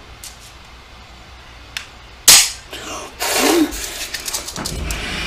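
A single loud, sharp snap from an Elite Force HK VP9 airsoft pistol about two seconds in, preceded by a faint click. Afterwards comes a short hum of a voice and some handling noise.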